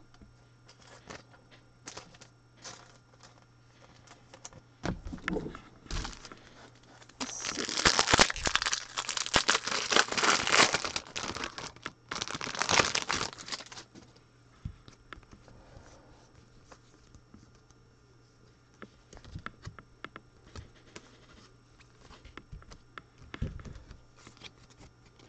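Trading-card pack's foil wrapper being torn open and crinkled. The wrapper noise is loudest for several seconds in the middle, with lighter rustles and taps of the cards being handled before and after.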